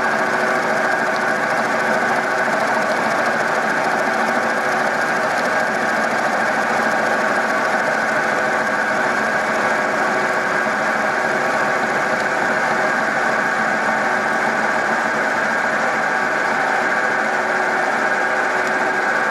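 Milling machine cutting a brake caliper mount with a large end mill. The spindle drive runs with a steady drone and several steady whining tones, without a break.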